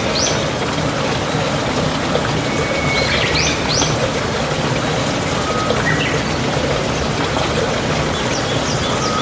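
A bird calling repeatedly, about every three seconds: a short level whistle followed by quick rising notes, over a steady rushing background.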